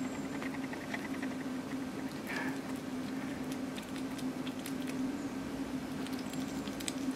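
Hedgehog chewing a piece of croissant: quick runs of small clicks and smacks over a steady low hum.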